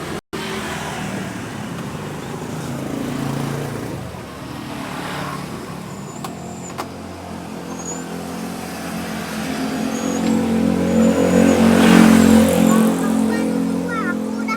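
A motor vehicle's engine passing on the road, building up, loudest about twelve seconds in, then fading away.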